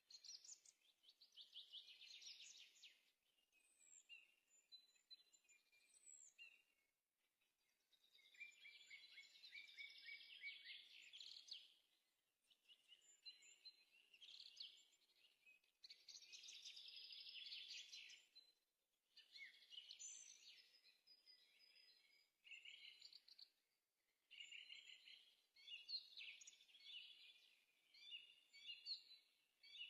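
Faint birdsong: a small songbird singing repeated rapid trilled phrases of a few seconds each, with short pauses between them.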